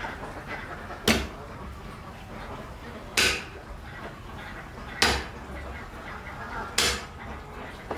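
Heavy cleaver striking garlic cloves on a thick chopping block: four sharp knocks, about two seconds apart.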